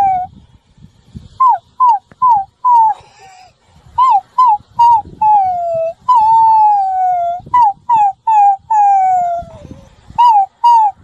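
Puppies howling: a run of short high yelps, broken by three longer howls that slide down in pitch in the middle stretch.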